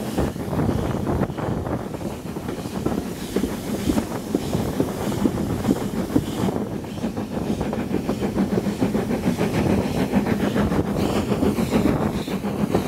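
Steam-hauled train, drawn by S&DJR 7F 2-8-0 locomotive no. 53809, running steadily, heard from a carriage window: a continuous rumble and clatter of the coach wheels on the rails, with the hiss of steam.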